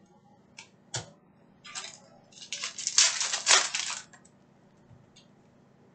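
Foil wrapper of an Optic basketball hobby card pack being torn open and crinkled. A couple of light clicks come first, then about two seconds of sharp crinkling that peaks near the middle.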